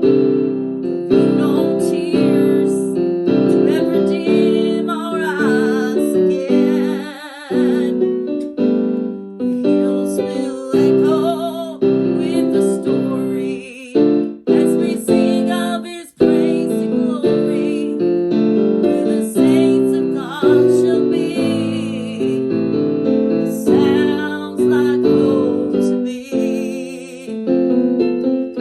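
A song played on piano with a woman singing over it, her held notes wavering in vibrato; the playing drops out for a moment about two-thirds of the way through.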